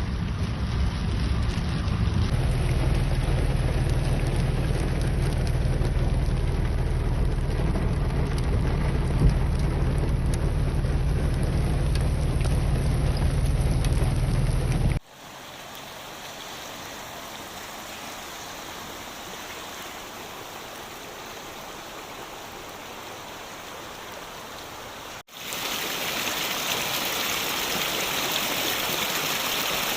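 Rain falling, in three clips joined by sudden cuts: the first loud with a strong low rumble under the hiss, the second, from about halfway, much quieter, and the third, near the end, a brighter, louder hiss.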